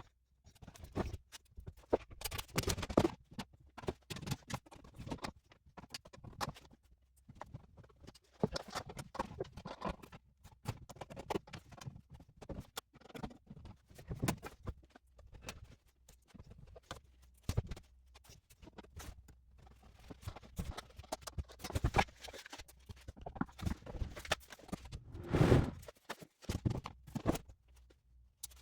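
Irregular clicks and knocks of box fan parts being handled and fitted back together, with a few louder knocks among them.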